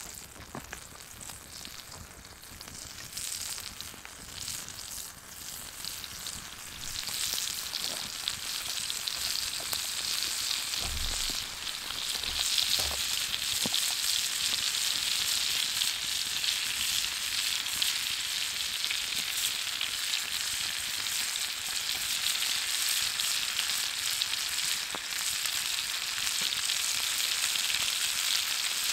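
Butter sizzling as it melts in a cast-iron frying pan over a campfire. The sizzle swells about a quarter of the way in and then holds steady, and by the end pieces of meat are frying in the foaming butter.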